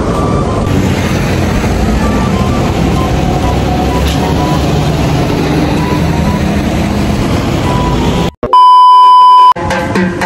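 Road traffic noise, a steady rumble with scattered short tones. It breaks off about eight seconds in for a loud, steady electronic beep lasting about a second. Drumming starts right after the beep.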